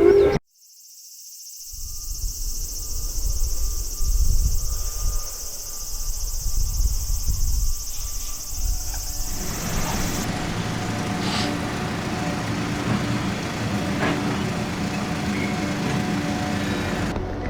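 A vehicle running, a low rumble, with a steady high insect drone of crickets or cicadas over it that stops abruptly about ten seconds in; from about nine seconds a steadier low hum with several held tones continues.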